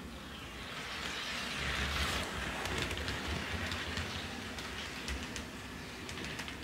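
HO scale model freight train, a diesel locomotive pulling loaded flatcars, rolling along the track. It makes a steady hissing rumble scattered with quick clicks of the wheels, loudest about two seconds in as it passes close.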